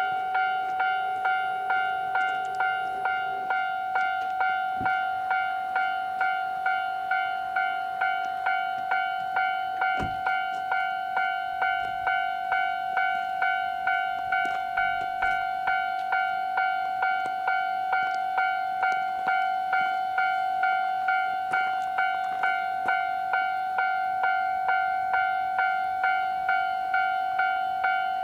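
Japanese railway level-crossing alarm: an electronic bell striking a ringing tone steadily, about twice a second, warning that a train is approaching.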